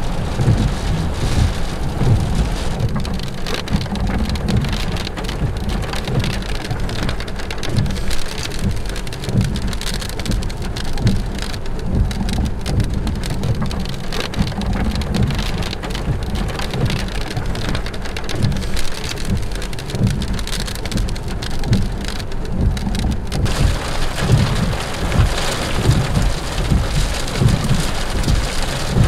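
Heavy thunderstorm rain beating on a car, heard from inside, with thunder rumbling underneath. The hiss of the rain turns sharper about 23 seconds in.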